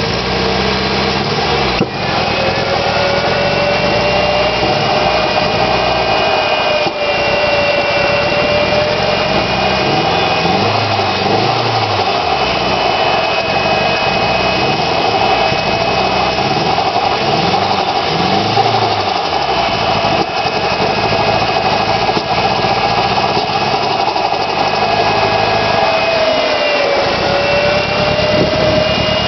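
Nissan SR20DET turbocharged 2.0-litre four-cylinder engine idling with a misfire, a fault that showed up after the car sat for three months. A steady whine runs over the engine note and dips slightly near the end.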